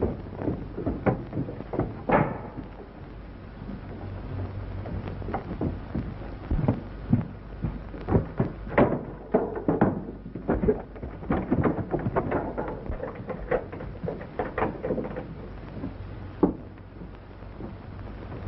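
Irregular knocks, bumps and scrapes, thickest in the middle stretch, over the steady low hum and hiss of an old film soundtrack.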